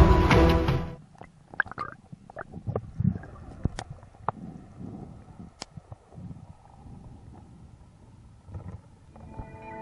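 Underwater sound picked up by a diver's camera: scattered sharp clicks and low muffled rumbles. Music cuts off about a second in.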